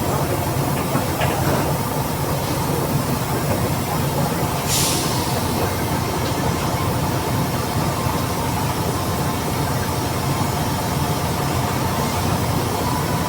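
Mercedes-Benz OF 1721 bus, its four-cylinder diesel running steadily while on the move, with the differential growling as a steady whine over the engine: a noisy differential. A short hiss about five seconds in.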